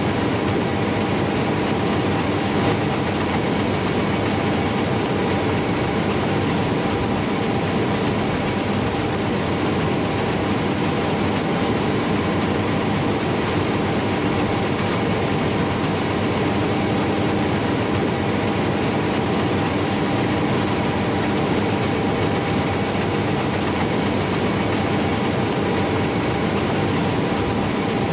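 John Deere S770i combine harvester running steadily, a constant machine noise at an even level with several steady tones in it.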